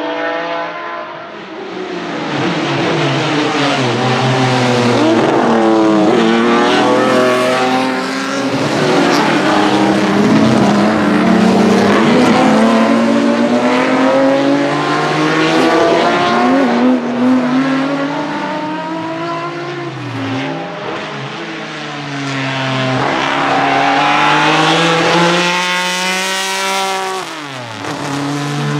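Ford Capri RS 3100 Group 2 race cars with Cosworth GAA 3.4-litre DOHC V6 engines at racing speed, revving up through the gears and dropping back on the lift. The pitch falls sharply as cars pass close by, twice in the second half.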